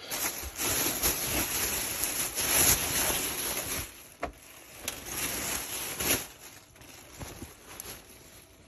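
Thin plastic shopping bag crinkling and rustling as a pair of jeans is pulled out of it, loudest for the first four seconds, then in shorter bursts that die away.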